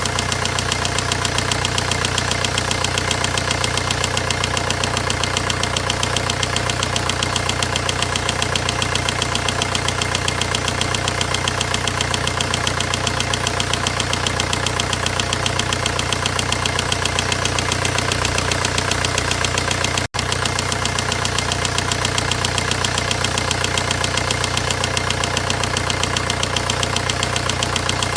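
Volkswagen 1.9-litre diesel engine idling steadily with a fast, even clatter: the abnormal engine noise being shown.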